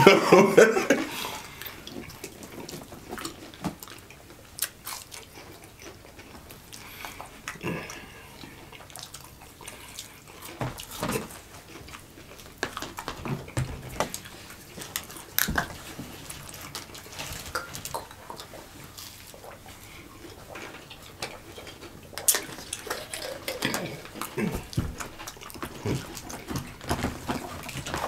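Chicken McNuggets being chewed and bitten by two people eating quickly, close to the microphone: a steady run of small irregular wet clicks and bites, a little busier near the end.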